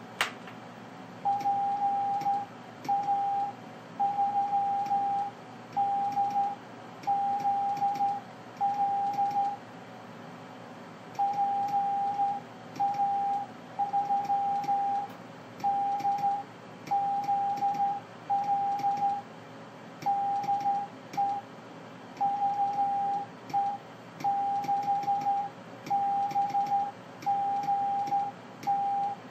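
Very slow Morse code (CW) from a ham radio on 432 MHz moonbounce: a single steady tone of about 800 Hz keyed on and off in long dashes and shorter dots, with a short break a little before the middle. A sharp click at the very start.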